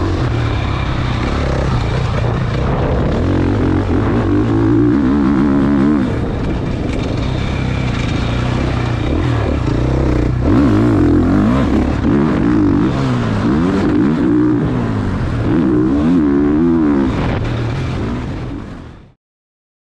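Motocross bike engine revving up and down through the throttle as it rides the dirt track, then fading out near the end.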